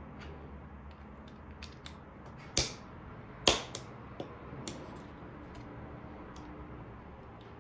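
Clicks and knocks from computer hardware being handled: a few light clicks, with two sharper knocks about two and a half and three and a half seconds in.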